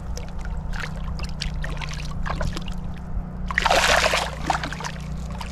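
Trout thrashing in shallow water at the lake's edge: small splashes and drips, then one loud splash about three and a half seconds in.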